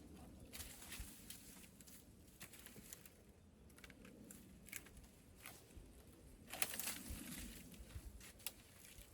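Faint rustling and crackling with scattered light clicks, and a louder stretch of rustling about two-thirds of the way through.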